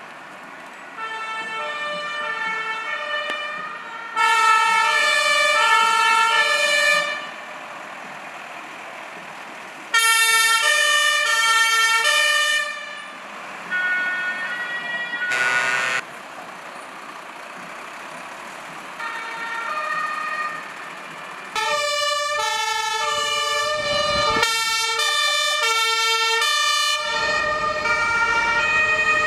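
German two-tone fire engine sirens (Martinshorn) sounded in bursts of a few seconds by passing fire trucks, alternating a low and a high note. Near the end two or more sirens sound at once, out of step with each other.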